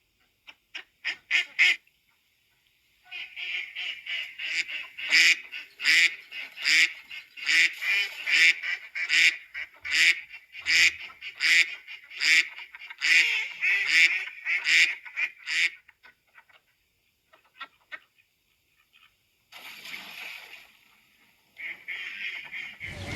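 Farm geese and ducks calling: a long run of loud, rapid repeated calls at about two a second, then a pause and a couple of shorter bursts near the end.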